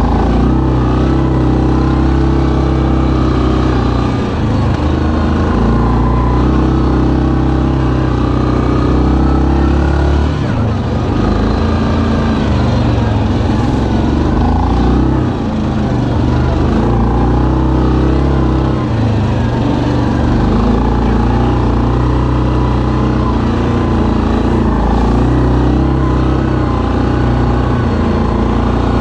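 2019 Yamaha Kodiak 700 ATV's single-cylinder engine running under load while riding a dirt trail. Its pitch rises and falls with the throttle, and it dips briefly a few times as the rider lets off.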